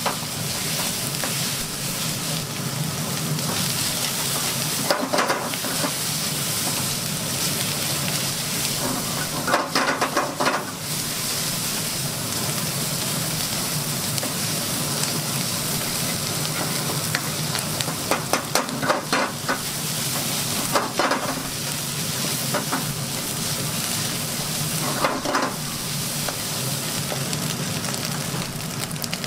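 Fried rice sizzling in a wok over a gas flame while it is stirred with a plastic ladle, with louder scraping strokes of the ladle against the wok every few seconds.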